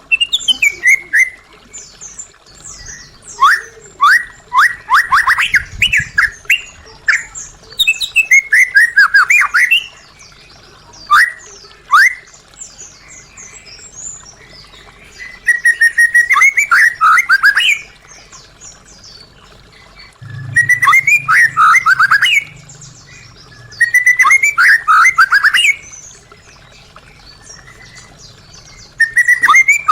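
White-rumped shama (murai batu) singing: about eight loud phrases of rapid, downward-sweeping whistled notes, each lasting a second or two, with short pauses between them.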